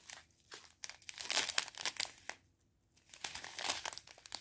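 Clear plastic bags of diamond painting rhinestones crinkling as fingers press and shift them, in two bouts with a short pause between.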